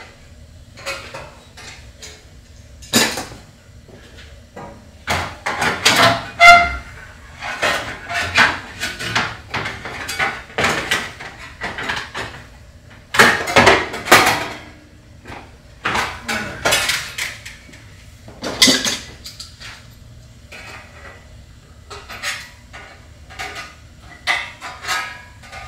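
Thin water-heater front cover being cut with hand snips and handled: irregular sharp metallic clicks, snips and rattles with short pauses between them.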